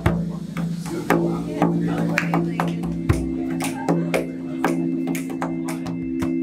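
Hand-played frame drum struck about twice a second over a sustained low drone whose pitch shifts now and then.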